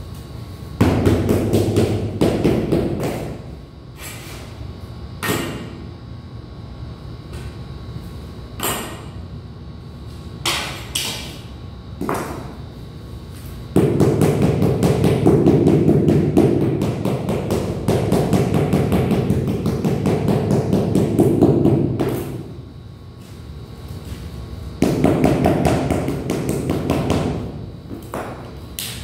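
Rubber mallet beating large 80 x 80 cm ceramic floor tiles to bed them into the mortar, in fast runs of dull knocks. A short run comes near the start, a long one of about eight seconds in the middle and another near the end, with single knocks between.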